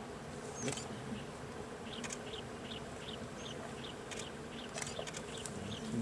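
Insects buzzing steadily, with a short high chirp repeating about two and a half times a second from about two seconds in, and a few sharp clicks.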